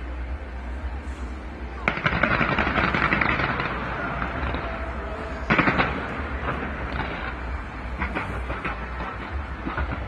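Fireworks going off in dense crackling volleys: a loud burst about two seconds in, another sharp burst near the middle, then scattered cracks, over a low rumble.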